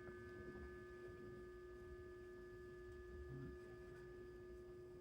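Near silence: room tone with a faint steady hum made of several thin tones.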